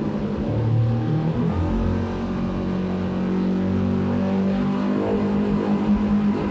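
Yamaha F150 four-stroke outboard running hard as the boat picks up speed toward full throttle, heard from the cockpit over wind and water noise. Its pitch climbs in the first couple of seconds, then holds steady at high revs.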